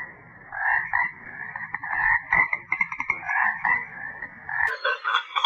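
An animal calling over and over in short, rapid pulsed calls; the sound changes near the end.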